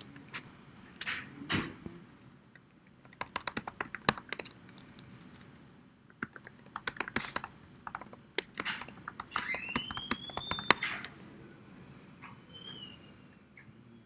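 Bursts of computer keyboard typing, quick runs of key clicks with pauses between, and a short rising squeak about two-thirds of the way through.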